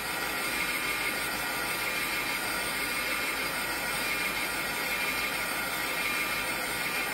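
Craft heat tool blowing steadily, a rush of hot air with a faint steady whine from its fan, drying wet watercolour ink on paper.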